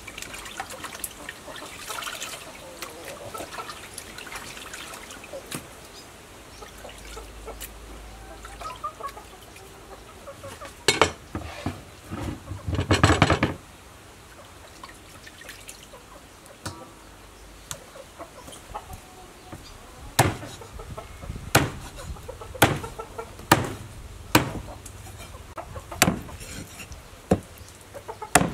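Raw chicken being washed by hand in a steel bowl of water, with light splashing and a loud splash of water about halfway through. In the last third a cleaver chops the chicken on a wooden chopping block, sharp separate chops about once a second. Chickens cluck in the background.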